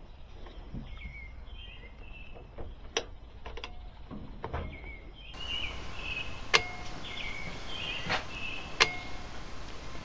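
Quiet background with faint, short high chirps repeating now and then, and a few sharp clicks scattered through it.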